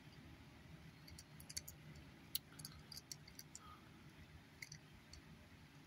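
Near silence with a low room hum, and faint scattered clicks and ticks from a small die-cast toy car being turned over in the fingers, between about one and five seconds in.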